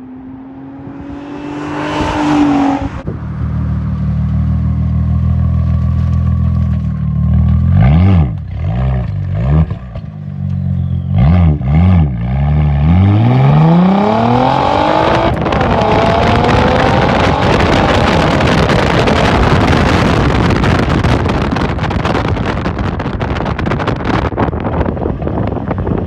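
Straight-piped Audi A4 exhaust accelerating down the road, its note rising and falling with the revs. Over the second half, heavy wind noise on the car-mounted microphone largely buries the exhaust.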